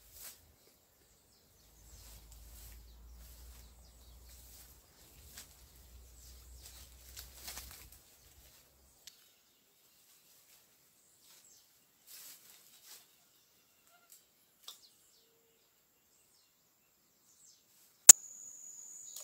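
Quiet creekside ambience with faint rustling in the grass and a low wind rumble on the microphone. Near the end a single sharp click is followed by a steady high-pitched tone.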